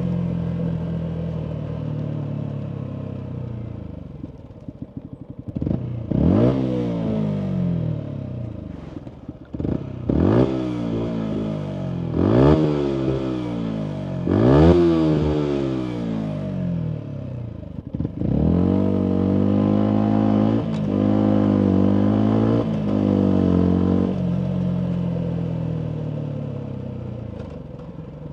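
Yamaha MT125's single-cylinder 125 cc four-stroke engine through a full Akrapovic exhaust, under way. It falls off, then is revved hard four times in quick succession, each rev climbing fast and dying away slowly as the throttle closes, with crackling on the overrun. It then holds a steady cruise for several seconds and winds down again near the end.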